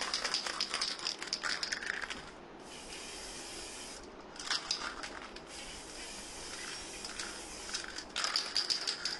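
Aerosol can of black spray paint hissing in several bursts of one to a few seconds while an alloy wheel rim is painted, with spells of rattling clicks in between.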